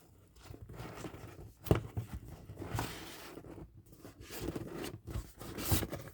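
Cardboard packaging box being opened by hand: the lid and flaps scraping and rustling, with a few sharp knocks and clicks as the box is handled.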